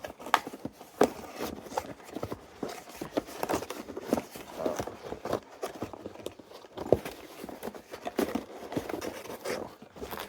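Wind chime set and its packaging being handled and packed back into the box: rustling with irregular sharp clicks and knocks.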